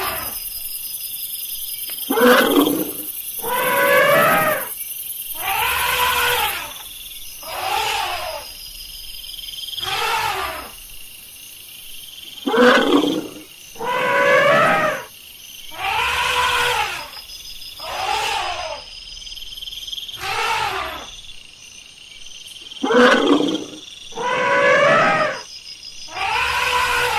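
Elephant calling repeatedly: about thirteen short calls, each rising and falling in pitch, coming roughly every two seconds.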